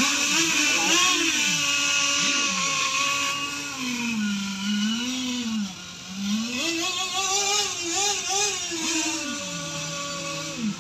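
Several radio-controlled model boat engines running at high revs together, their pitch swooping up and down as they rev and ease off.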